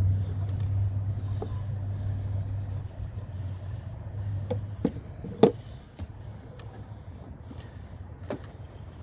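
Steady low hum from the 1997 Suburban that cuts out about four and a half seconds in, followed by a few sharp clicks and knocks, the loudest about a second later.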